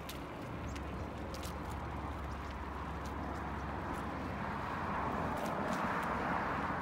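Bicycle tyres rolling on asphalt with a steady rush of wind and road noise that grows louder past the middle, and scattered sharp clicks and ticks.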